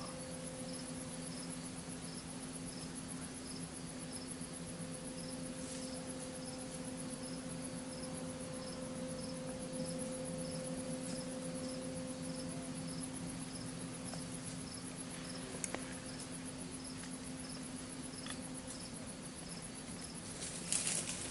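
Crickets chirping in a steady, even rhythm, about one and a half high chirps a second, over a low steady hum. A single sharp click comes about three-quarters of the way through, and a brief rustle comes near the end.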